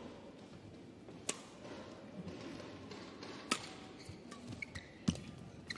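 Badminton rally: a racket strikes the shuttlecock three times with sharp cracks about two seconds apart, and shoes squeak briefly on the court floor near the end.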